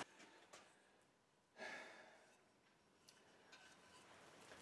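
Near silence, with one faint, brief sound about a second and a half in.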